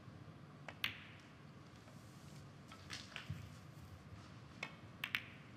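Snooker balls clicking on the table: sharp cue-and-ball clicks about a second in, a dull thud a couple of seconds later as a potted ball drops into a pocket, then a few more clicks near the end.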